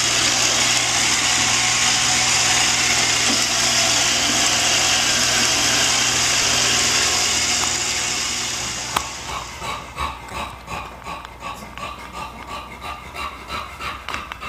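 Robot vacuum cleaner running with a steady whirring hum and hiss. About nine seconds in, after a click, it gives way to an English bulldog panting rhythmically, about two breaths a second.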